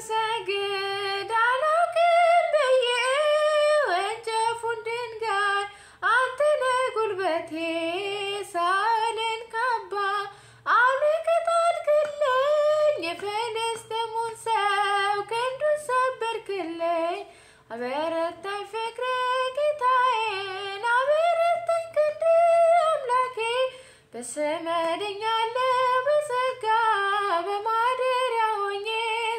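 A woman singing an Amharic Ethiopian Orthodox hymn (mezmur) solo with no instruments, in long phrases of a few seconds with short breaths between them.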